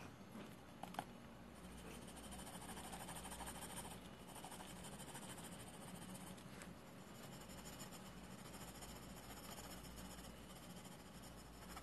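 Faint scratching of a graphite pencil shading on drawing paper, building up tone in the darker areas, with a couple of light taps about a second in.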